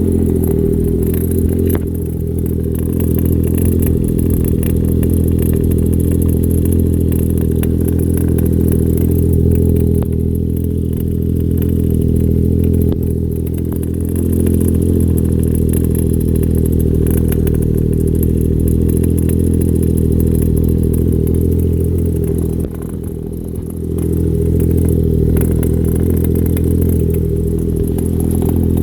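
Vehicle engine idling steadily, the noise the owner finds strange. It dips briefly about three-quarters of the way through.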